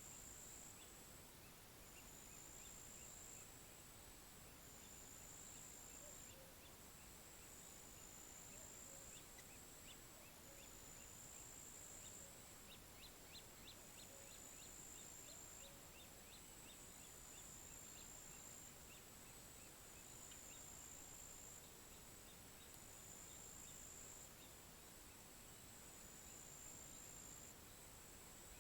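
Faint pond-side night ambience: crickets keep up a steady high trill, with a run of rapid faint ticking calls in the middle and soft low frog croaks repeating about once a second in the first half.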